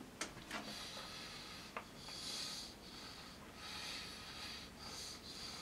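Faint chewing of a milk-chocolate-covered pretzel ball, with a few small crunches in the first two seconds and breathing through the nose.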